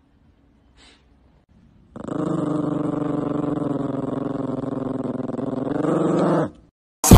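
A small long-haired dog growling: one continuous growl lasting about four and a half seconds, starting about two seconds in. It swells a little just before it stops.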